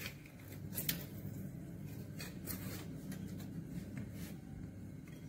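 Stainless steel hand-press lemon squeezer being worked, giving a few faint clicks and rubbing sounds over a low steady hum.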